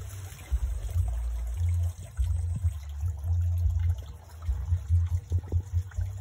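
Hands stirring shallow river water, with faint trickling and small splashes. Over it runs an uneven low rumble on the microphone that comes and goes.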